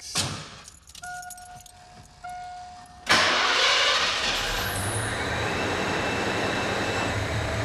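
Keys rattle and a dashboard warning tone sounds twice, then about three seconds in the 1988 Ford Bronco's engine starts abruptly and settles into a steady idle through its new Flowmaster exhaust.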